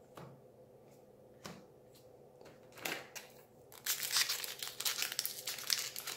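A Modern Horizons booster pack's foil wrapper being torn open and crinkled in the hands, dense crackling starting about four seconds in. Before it, a few soft clicks of playing cards being stacked and set down.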